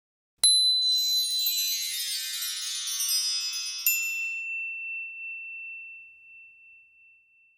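A shimmering chime flourish: a bright strike about half a second in sets off a cascade of tinkling high tones, then a second ping near four seconds leaves one clear ringing tone that slowly fades out.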